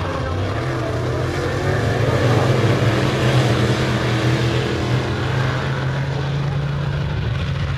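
Open-wheel dirt modified race cars running laps with engines at full throttle. The sound swells loudest a couple of seconds in as the cars pass close by, then settles back to a steady drone.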